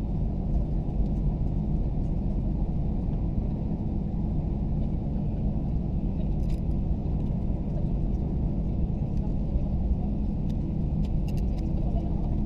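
Steady low rumble of an Airbus A320 cabin while the airliner taxis, its engines running at low taxi thrust. A few faint ticks sound over it.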